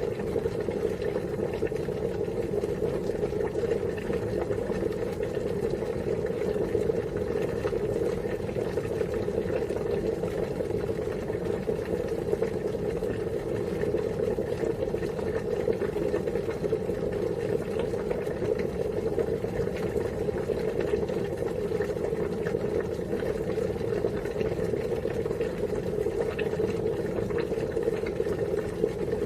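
Water boiling at a full rolling boil: a steady dense bubbling and crackling with no change in level.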